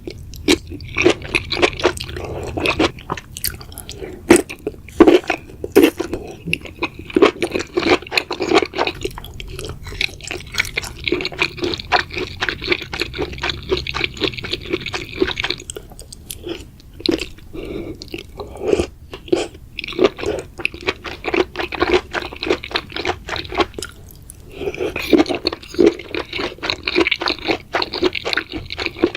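Close-miked chewing and crunching of enoki mushrooms, with rapid, crisp crunches running almost without a break and a couple of short lulls.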